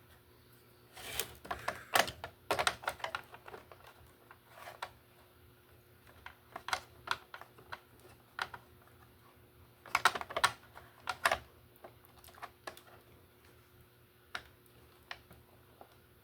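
Irregular clicks and taps of hard plastic Roomba robot-vacuum parts being handled and fitted, busiest about a second in and again about ten seconds in, with scattered single clicks between.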